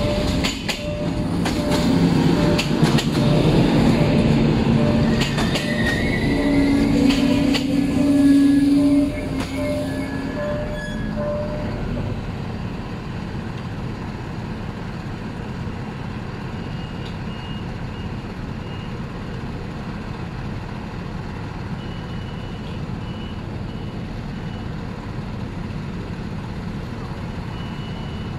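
Siemens Desiro diesel multiple unit rolling in with wheel clicks and brake squeal, coming to a stop about nine seconds in. Its diesel engine then idles steadily at the halt, with a few short high beeps later on. A level-crossing bell dings in a steady rhythm for the first dozen seconds.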